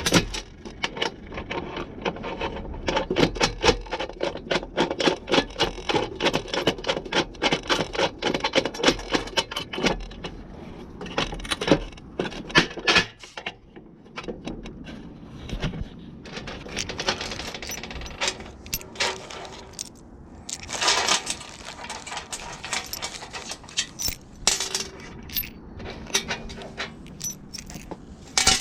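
Small metal parts and hand tools clicking, clinking and scraping in quick runs of sharp ticks, from hands-on work on bumper bracket hardware and bolts.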